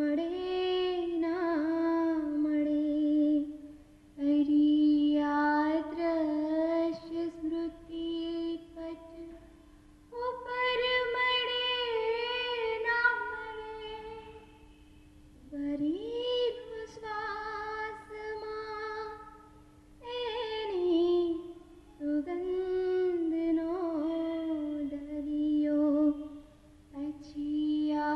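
A woman singing a slow solo song of separation in long phrases with short pauses between them. A steady low drone is held underneath through the middle.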